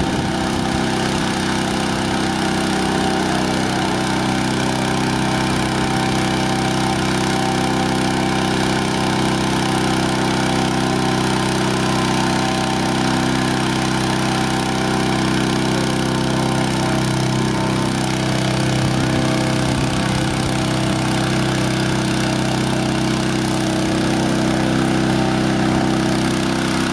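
Petrol-engine inflator fan running steadily, blowing cold air into a hot-air balloon envelope during cold inflation; a steady engine hum with no change in speed.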